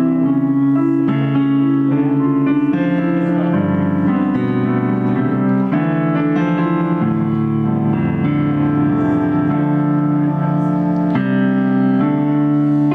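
Piano played live: a slow series of sustained chords that change every second or two.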